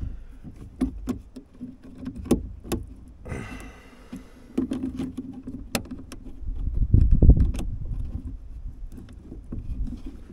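Scattered small clicks and taps of a thin steel cable and the metal lid latch of a Scania toolbox being worked by hand, with a brief hiss a little after three seconds and a louder low rumble around seven seconds.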